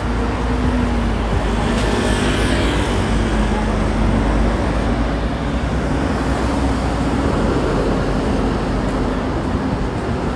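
Busy city road traffic: cars and buses passing close by with steady engine and tyre noise, one vehicle sweeping past about two seconds in.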